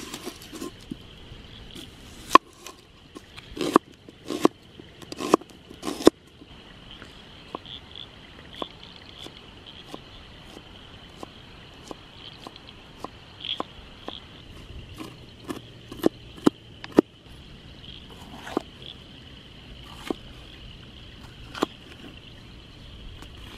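Chef's knife slicing a red onion and a green bell pepper on a wooden cutting board: sharp, irregular knocks of the blade striking the board, densest in the first few seconds and sparser later. A steady high hum runs behind.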